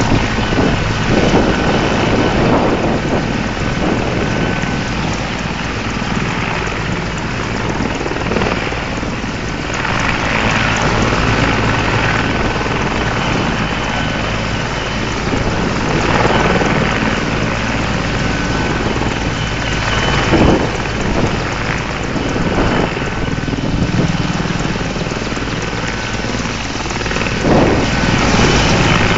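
Mil Mi-24 helicopter's twin turboshaft engines and main rotor running on the ground ahead of takeoff: a loud, steady rushing noise with a faint high whine through it. Gusts of rotor wash buffet the microphone now and then.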